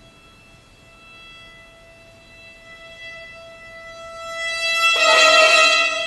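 Solo violin holding a quiet sustained note, then a sudden loud bowed accent with heavy bow noise about five seconds in, easing off near the end.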